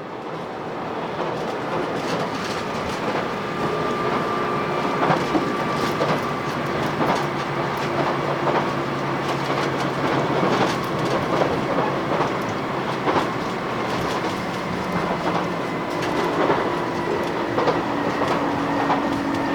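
Running noise inside a JR Shikoku 2000 series diesel tilting train on the move: wheels clacking over rail joints under a steady rumble of the running train. It fades in over the first second or so.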